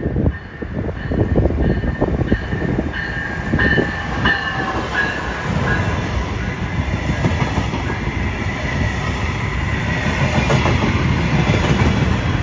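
A passenger train passing close by, its wheels clattering and rumbling over the rails. A short high ringing tone repeats about twice a second through the first half.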